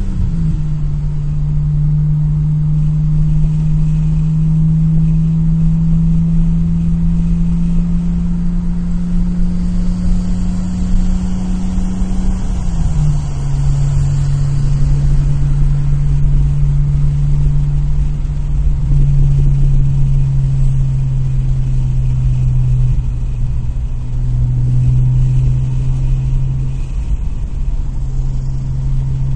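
Nissan Maxima V6 engine running steadily, its pitch stepping down slightly just after the start and again about halfway through, with the engine under test for a slight misfire.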